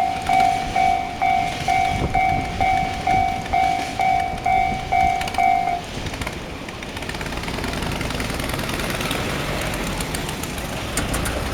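Japanese electronic level-crossing alarm ringing in a steady single-tone ding about twice a second, cutting off about six seconds in as the crossing clears. A steady low rumble of road vehicles follows.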